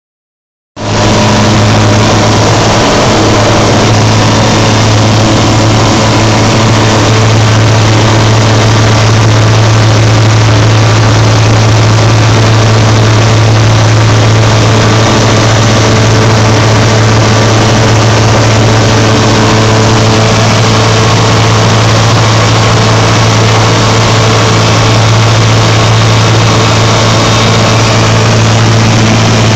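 Pelican light aircraft's propeller engine running steadily, loud and close, with a strong low drone and no clear change in revs.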